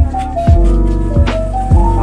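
Background music with a steady drum beat under a stepping melody.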